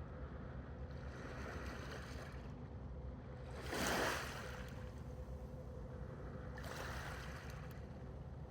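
Sea water washing against the dock, with soft swells and one louder wash about four seconds in, over a steady low rumble.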